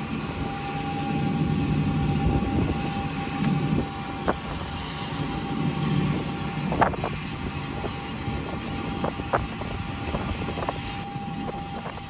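John Deere combines and a grain-cart tractor running at harvest: a steady machinery drone with a constant thin whine and a low rumble. A few sharp clicks come through about four, seven and nine seconds in.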